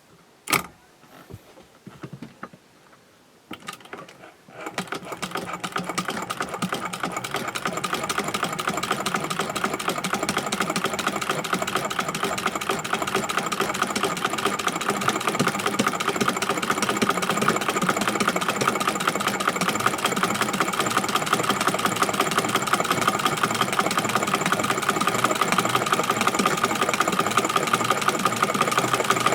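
Singer 201K sewing machine with a buttonholer attachment, sewing a buttonhole. A few sharp clicks come in the first seconds, then about four and a half seconds in the machine starts and runs at a fast, even stitching rhythm.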